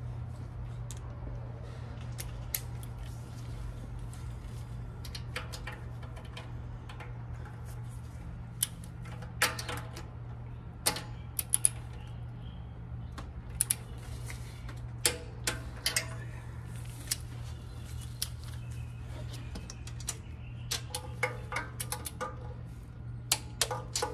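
Torque wrench and ratchet clicking as exhaust manifold nuts are tightened to spec: scattered sharp metallic clicks, some in short runs, starting about eight seconds in, over a steady low hum.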